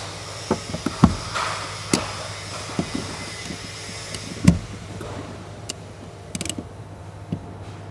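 A hand ratchet and socket knocking and clicking against the metal screws of a car's fuel-pump access cover as they are unscrewed. There are scattered knocks, the loudest about a second in and about four and a half seconds in, and a brief run of fine ratchet clicks near the end, over a steady low hum.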